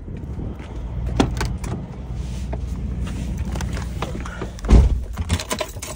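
A pickup truck's cab door is opened and then shut with one heavy thump about three-quarters of the way in. A few sharp clicks and knocks from the door and handle come before and after it, over a low steady engine hum.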